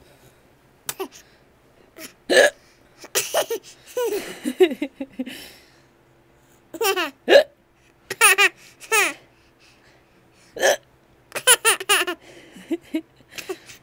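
Hiccups, sudden short catches of breath, heard repeatedly between bursts of laughter.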